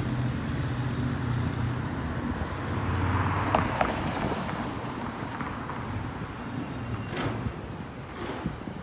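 City street traffic: a vehicle engine running low, then a vehicle passing about three to four seconds in, with a few sharp clicks or knocks near the end.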